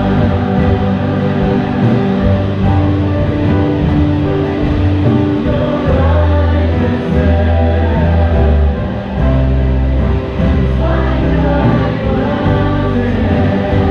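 Church worship music: several voices singing together over instrumental backing with a steady bass.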